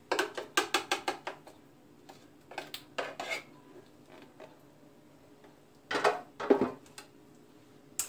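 A metal spoon clinking and scraping against a glass baking dish as batter is spread over the filling. A quick run of about eight clicks comes in the first second and a half, a few more around three seconds, and a short cluster around six seconds.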